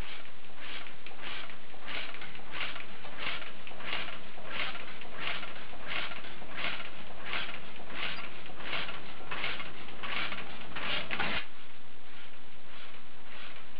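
1917 Austral 3.5 hp lamp-start oil engine running slowly, with an even clatter of about one and a half beats a second.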